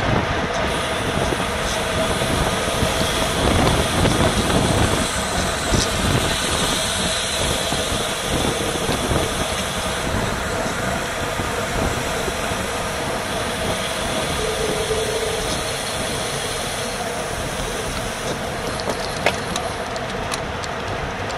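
Steady wind and road noise on a bicycle-mounted action camera at racing speed: air rushing over the microphone with tyre and drivetrain hum, loud and unbroken, with a faint steady whine.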